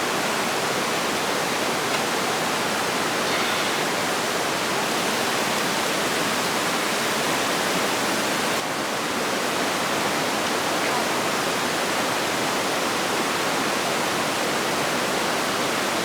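Steady, even rushing noise with no distinct events, of the kind made by flowing water; it dips briefly about halfway through.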